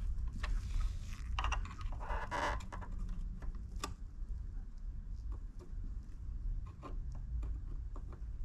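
Scattered light clicks and short scrapes of a small screwdriver and gloved fingers working plastic standoffs into place around a scooter's controller board, over a low steady hum.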